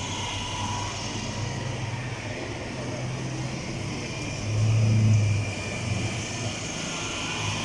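Car engine running steadily with a low hum, swelling louder for about a second around the middle.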